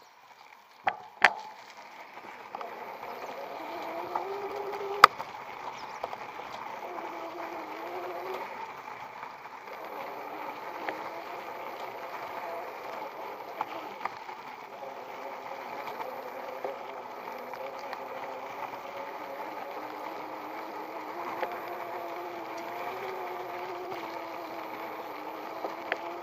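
Electric bicycle's 250 W hub motor whining, its pitch wavering up and down with speed, over steady rolling and rattling noise. The whine is far louder on the recording than the motor, which is almost silent in person. A few sharp knocks come about a second in, and a click around five seconds.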